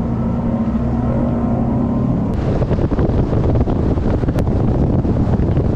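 Bass boat's Mercury outboard running under way. A steady engine hum for the first couple of seconds gives way to loud wind buffeting and water rush, with knocks of the hull slapping through chop.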